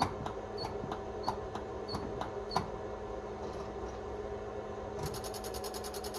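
Gas pedal of a carbureted Chevrolet being pumped to prime the cold engine before cranking, its linkage giving about six short squeaky clicks roughly two-thirds of a second apart. A fast, quiet ticking starts about five seconds in.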